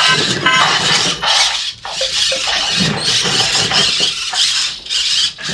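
Meccanoid G15 toy robot doing its break-dance routine: scratchy electronic dance sounds from its small built-in speaker, with its arm servo motors moving.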